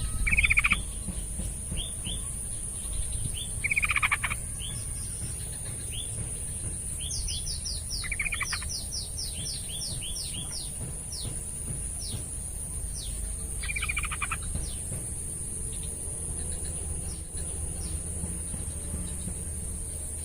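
Yellow-vented bulbul (trucukan) singing its bubbly chattering phrases, four of them at about four-second intervals. In the middle there is a quick run of high, falling chip notes. A steady high-pitched whine runs under it all.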